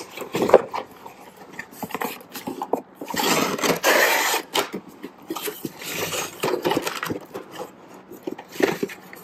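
Cardboard shipping case being handled: flaps scraping and rustling as they are folded open, with short knocks and the plastic-and-card blister packs of toy cars rubbing against each other and the cardboard as a hand works among them.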